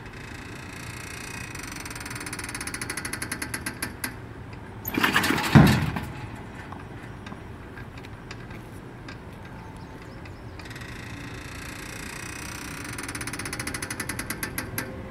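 Electric arm-style pitching machine cycling: a steady motor hum with rapid clicking that quickens as the chain drive winds the spring-loaded arm back, then a loud clattering release with a deep thump about five and a half seconds in as the arm throws a ball. The hum and quickening clicking start again about ten seconds in as it winds for the next pitch.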